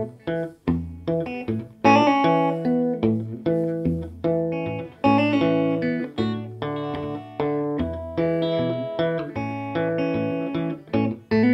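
Telecaster-style electric guitar played through a restored early-1960s Davoli D531T valve amp with the tremolo off. It plays a steady run of picked notes and chords, each struck sharply and left to ring.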